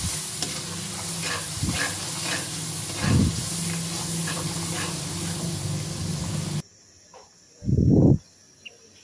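Onion-tomato masala sizzling in ghee in an aluminium kadai, with a metal spoon scraping and stirring the pan, over a low steady hum. The sizzle cuts off suddenly about two-thirds of the way through, leaving quiet broken by one loud low thump.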